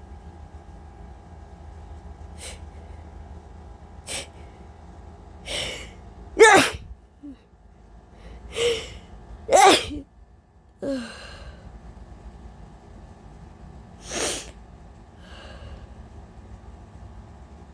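A woman's allergy sneezes, several in a row. The two loudest come about six and a half and nine and a half seconds in, another follows near fourteen seconds, and there are quieter catches of breath between them.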